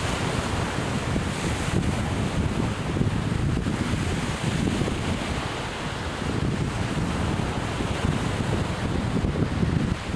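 Strong wind buffeting the microphone, with surf washing onto the beach behind it.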